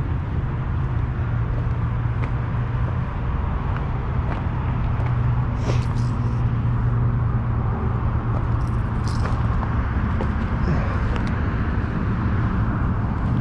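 A steady low motor drone, like distant road traffic, with a few brief clicks and rustles about six and nine seconds in.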